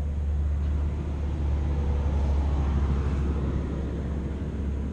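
Motorcycle under way: engine running with a steady low rumble, getting a little louder about two seconds in.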